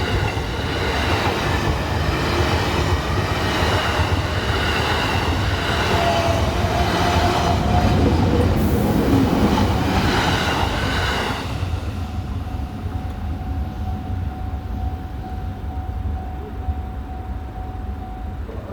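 A JR East E233 series electric train and a JR Freight DD200 diesel locomotive passing each other: wheels rumble and clatter on the rails under a high whine. About eleven seconds in it eases to a lower rumble with a steady hum.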